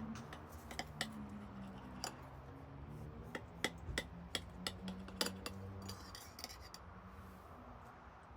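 Light clinks and clicks of kitchenware being handled, about a dozen sharp knocks over several seconds, with a short hiss near the end.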